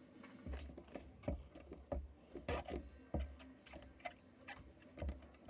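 Slime putty being kneaded and mixed with water by hand, making irregular sticky clicks and pops, with dull low bumps under them.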